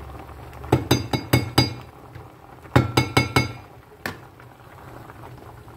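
A metal container tapped against the rim of an enamel pot to knock out powdered Maggi seasoning. It gives two quick runs of ringing metallic clinks, about five and then about four, and one last clink about four seconds in.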